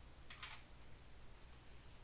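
Near silence: room tone with a faint steady low hum, and one brief soft rustle about half a second in.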